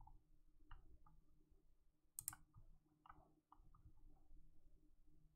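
Faint scattered small clicks and taps, with one sharper click a little over two seconds in, over a faint steady low hum.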